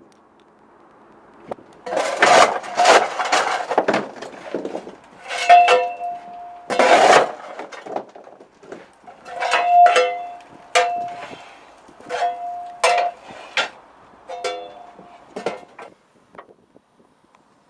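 Steel coal shovel scraping into coal and clanging against the metal of a steam locomotive's firebox and footplate as the fire is fed. There is a run of gritty scrapes, then about a dozen separate clangs, several of which ring on briefly.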